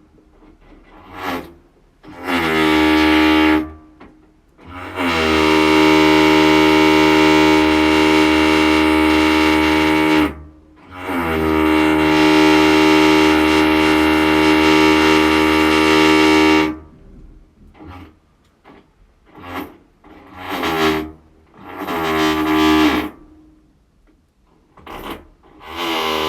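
Electric impact drill motor whining at a steady pitch, triggered in bursts. A couple of short blips come first, then two long runs of about five seconds each, then a string of short trigger pulls near the end. The pitch climbs quickly at each start as the motor spins up.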